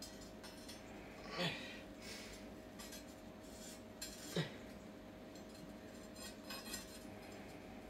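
Light metallic clinks of small steel pieces being handled against a forged steel log basket on a concrete floor, with two short louder clinks about a second and a half and four and a half seconds in, over a faint steady hum.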